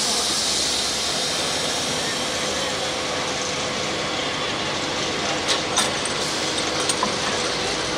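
Pro stock diesel pulling truck idling at the end of its pull under a steady hiss, with a faint steady whine and a few clicks about five and a half to seven seconds in.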